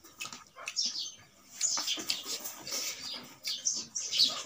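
Close-up eating sounds: a person chewing a mouthful of rice and meat, with irregular wet smacking and mouth clicks.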